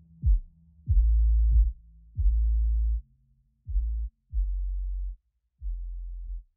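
Background electronic music of deep bass notes, each starting with a punchy hit, growing quieter toward the end.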